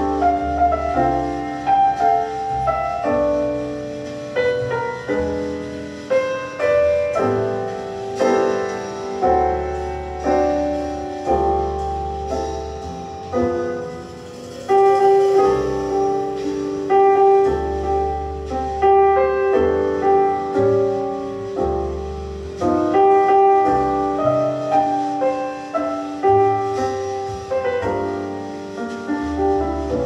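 Piano-led instrumental music with a deep bass line, played back through a Bang & Olufsen Beosound Balance wireless speaker as a live sound test.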